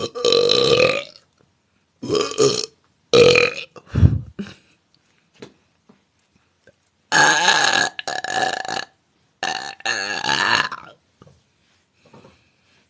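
A woman belching loudly, again and again: four short belches in the first four seconds, then after a pause two longer, drawn-out ones.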